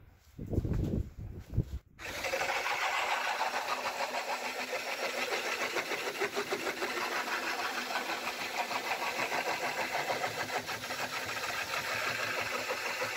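High-powered electric drill spinning an eight-sided wooden blank through a rounding jig, its fixed steel knife shaving the blank round into a shovel handle. A few low knocks, then about two seconds in the drill starts and the cutting runs steadily with a fine, rapid chatter.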